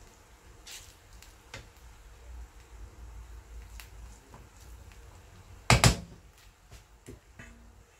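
Metal spoon turning cooked rice in a nonstick frying pan, with soft scrapes and light clicks. A little before six seconds in come two loud, sharp knocks close together.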